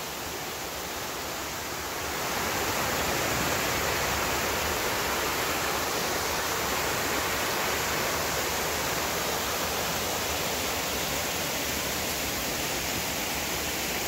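Waterfall pouring over a rock ledge, heard from right at its brink: a steady rush of water that grows louder about two seconds in and then holds.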